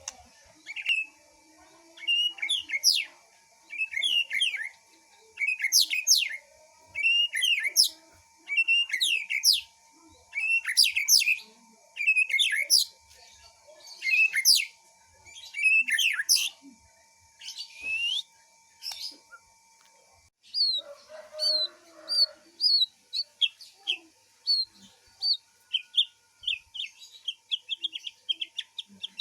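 A songbird singing: short, sharp whistled phrases repeated about once a second, then, about two-thirds of the way in, a quicker run of short chirps.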